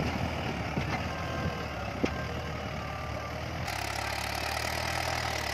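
Mahindra 475 DI tractor's diesel engine running steadily while pulling a spring-tine cultivator through dry soil, with a few sharp clicks in the first two seconds.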